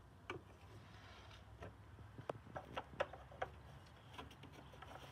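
Faint, irregular clicks and light knocks of plastic being handled: an oil funnel lifted out of the filler neck and the oil fill cap put back on the engine cover.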